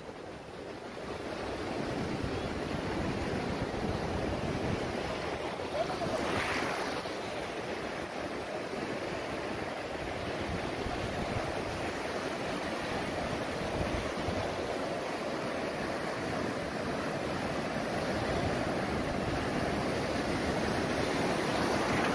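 Sea surf breaking and washing up a flat sandy beach: a steady rush of waves and foam.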